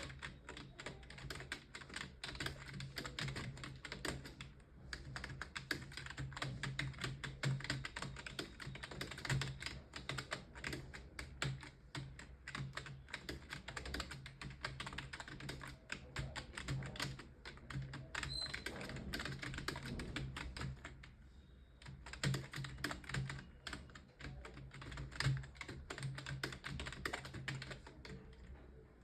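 Fast, continuous typing on a computer keyboard: a rapid stream of key clicks broken by a few brief pauses, over a steady low hum.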